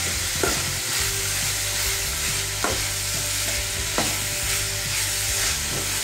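Sliced onions, curry leaves and green chillies sizzling in hot oil in a steel pan while being stirred with a steel spoon. The spoon knocks against the pan three times.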